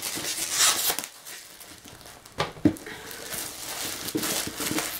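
Clear plastic wrap crinkling and rustling as it is peeled and pulled off a cardboard box, with a sharper crackle about halfway through.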